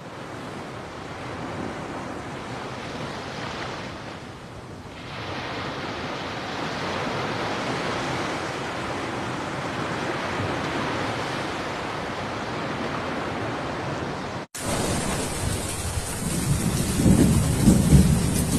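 Steady rushing wind and sea noise. After a cut about three-quarters of the way through, it gets louder, with wind gusting against the microphone in low rumbles.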